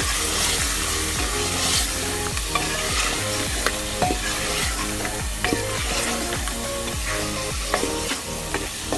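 Meat, onions and spices frying in hot oil in an aluminium pressure cooker, sizzling steadily while a wooden spatula stirs them, with frequent scrapes and clicks of the spatula against the pot.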